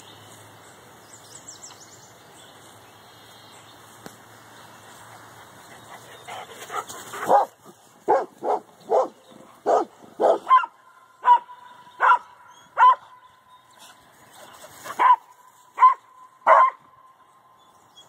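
Dog barking at cattle across a fence: a run of loud, sharp barks starts about seven seconds in, about one to two a second, then breaks off briefly before three more barks near the end.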